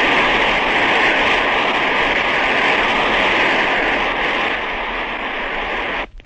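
Congress audience applauding steadily after the speech, heard on an old 1930s recording, with the applause stopping abruptly near the end.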